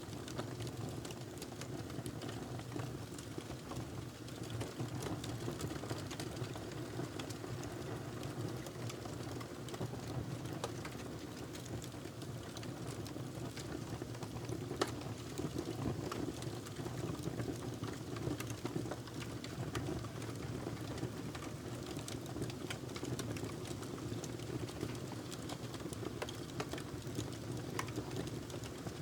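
Wood fire burning in a fireplace: a steady low rush of flames with frequent small crackles and one louder pop about halfway through.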